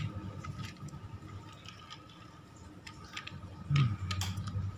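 Scattered faint clicks and taps as a small metal diecast model car is handled and set back down on a hard tabletop.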